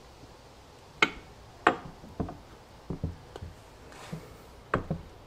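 Irregular sharp metal clicks and light knocks, about seven over a few seconds, as the idler gear of a Dana 20 transfer case is worked slowly down into the case by hand.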